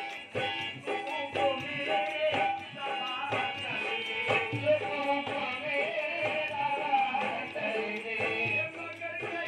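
Live qawwali-style devotional music: tabla drumming under a held melody line, with singing.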